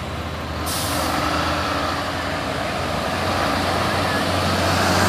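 Heavy diesel truck engine running, a steady low drone with a rushing noise that grows slightly louder, as trucks try to tow a stalled loaded truck up a steep climb.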